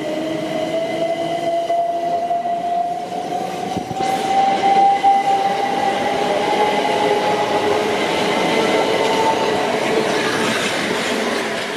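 Southeastern Class 375 Electrostar electric multiple unit pulling away, its traction motors whining in a tone that rises steadily in pitch as the train gathers speed, over the rumble of wheels on the rails. There is a single knock about four seconds in, and the rushing wheel noise grows hissier near the end as the last carriage passes.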